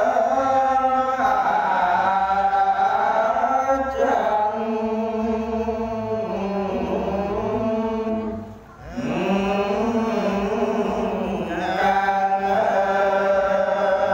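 A Khmer Buddhist monk chanting a Vinaya text through a microphone, in long, drawn-out melodic lines, with a short break for breath about nine seconds in.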